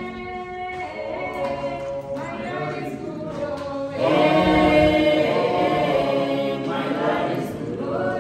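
A group of voices singing together, choir-style, in long held notes; the singing swells louder about four seconds in.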